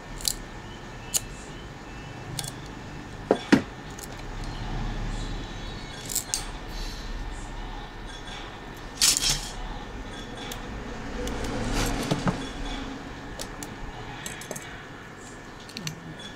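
Sharp snaps and clicks of small cutting pliers biting into an iPhone charger's circuit board, with small metal parts clinking. The loudest snaps come about three and a half seconds in and about nine seconds in.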